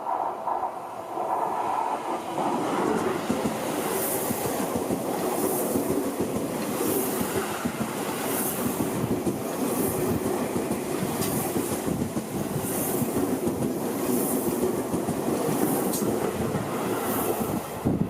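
A Seibu Ikebukuro Line train passing over a level crossing, its wheels clattering over the rail joints in a regular rhythm, one burst about every second and a half as each car goes by. Level-crossing warning bells ring over the first couple of seconds before the train drowns them.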